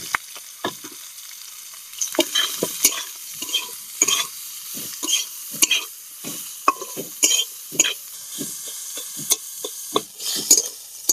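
Metal spatula scraping and stirring sliced onions and garlic frying in oil in a metal kadai, with a steady faint sizzle. The scrapes come irregularly, about two a second.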